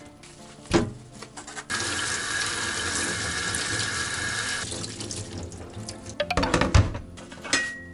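Kitchen tap running into a stainless steel sink, water splashing through a plastic colander of squid pieces; the flow starts about two seconds in and softens about halfway through. Near the end, the colander rattles and thuds as it is shaken.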